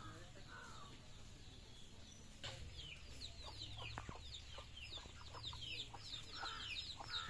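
Domestic chickens clucking and peeping, with a run of rapid, high, falling peeps starting about two and a half seconds in and growing busier toward the end.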